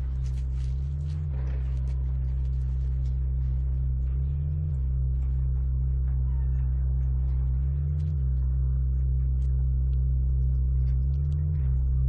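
Low sustained drone of score music, its low notes shifting together about every three and a half seconds.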